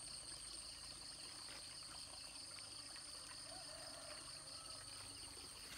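Faint, steady high-pitched chorus of insects such as crickets, over a low even background hiss.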